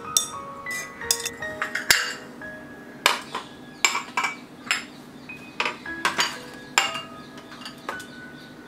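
White ceramic teacups being set down onto ceramic saucers and knocked against a metal tea strainer: a series of sharp clinks, some ringing briefly, with soft background music underneath.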